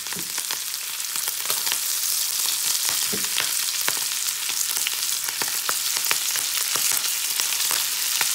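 Lamb chops frying in hot butter in a pan: a steady sizzle with many small crackles and spits, as fresh purple sprouting broccoli is piled into the pan on top of them.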